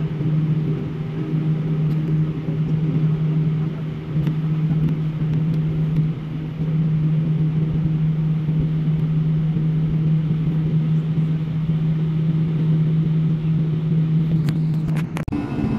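Steady drone of an airliner's engines heard inside the passenger cabin, with a constant low hum; it breaks off for an instant with a few clicks near the end.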